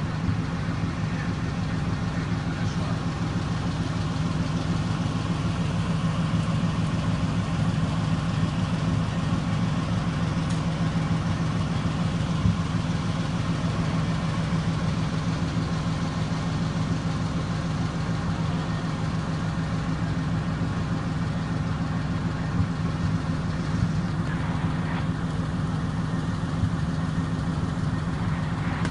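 Fire truck engine idling: a steady, unbroken engine drone with a constant low hum.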